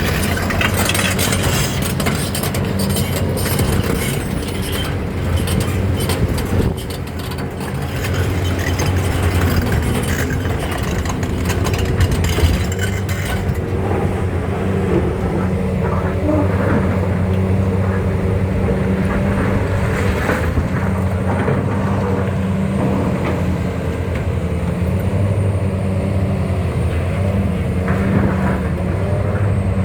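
Heavy diesel engine of a Hitachi 870 excavator running steadily with a low, even drone. Harsh rattling and scraping noise sits over it in the first half and dies away about halfway through.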